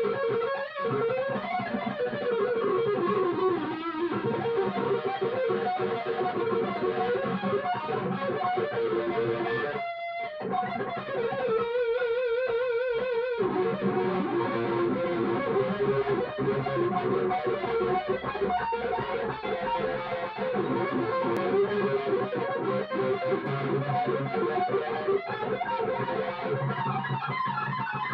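Stratocaster-style electric guitar playing an improvised lead through an amplifier: flowing melodic runs, a brief break about ten seconds in, then a held note with a wide, wavering vibrato before the runs carry on.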